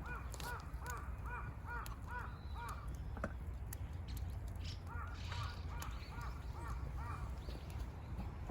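A bird calling in two quick runs of clear, repeated notes, about two or three a second: one run at the start and another about five seconds in. A steady low rumble lies underneath.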